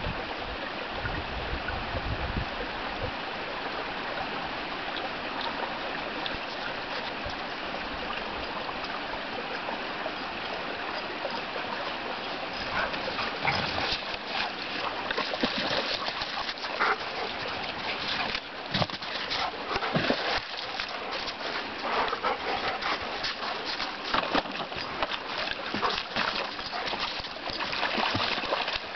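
A small shallow stream running steadily; from about halfway through, dogs wade and paw through the water with many irregular splashes.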